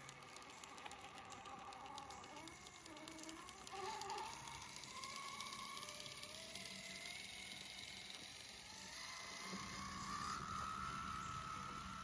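Radio-controlled scale crawler truck's electric motor and gears whining, the pitch rising and falling as the throttle changes. A low rumbling noise joins about three quarters of the way in.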